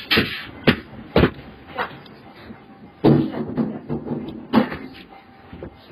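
Irregular knocks and bangs, several a second, with a longer, louder clatter about three seconds in: a room's doors and fittings rattling and banging as an earthquake shakes the building.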